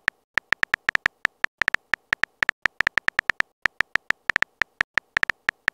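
Phone keyboard typing clicks: quick, sharp taps in an uneven rhythm, about six a second with a few short pauses, as a text message is typed out letter by letter.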